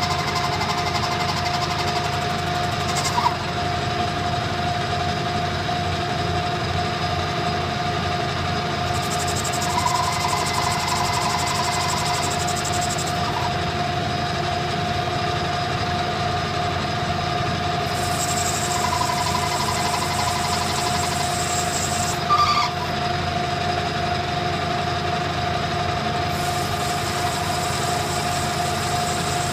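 Metal lathe running steadily while a carbide insert takes a light clean-up cut along a spinning brass bar: a continuous motor and gear hum with a steady whine. Two brief clicks, about three seconds in and again about twenty-two seconds in.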